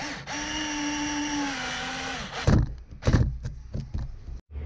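Cordless drill running steadily for about two seconds, driving a screw through the vent fan frame into the roof, its pitch dipping slightly as the screw tightens. Then a few sharp clicks and knocks as the drill is handled.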